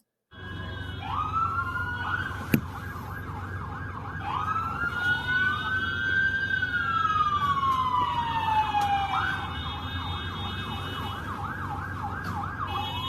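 Several emergency-vehicle sirens of fire engines and ambulances sounding at once: a fast yelp warbling about two and a half times a second over slow wails that rise and fall across a few seconds, with a low rumble underneath. A single sharp click about two and a half seconds in.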